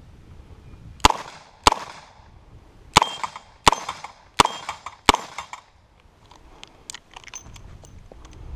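Six gunshots in a string: a quick pair, then four more at an even pace of about one every 0.7 s, each ringing briefly. Fainter clicks and ticks follow.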